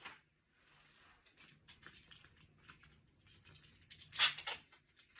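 Hands handling gift-basket materials: light rustling and small taps, with a short loud crackle about four seconds in.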